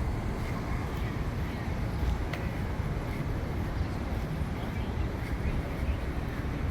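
Steady outdoor ambience: a continuous low rumble with faint voices in the background and one short click about two seconds in.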